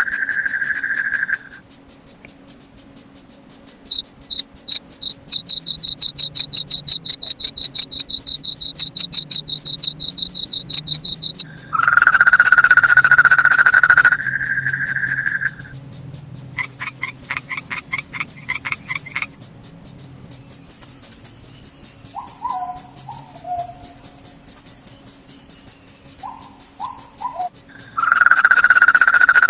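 Night chorus of crickets: a fast, steady high chirping throughout, with a second chirping insect joining for several seconds. A louder, lower trill sounds briefly at the start, again about twelve seconds in and near the end, and a few short calls come in between.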